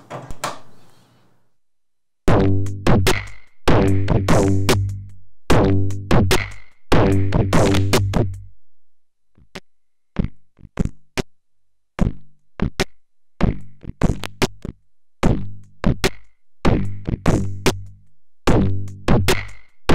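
A drum loop processed through the third waveshaper of a Synthetic Sound Labs Serge Triple Waveshaper (Model 1050), its hits turned into buzzy, pitched, distorted thumps. It starts about two seconds in. Around the middle it thins to sparse clicks, then fills out again with heavy low hits.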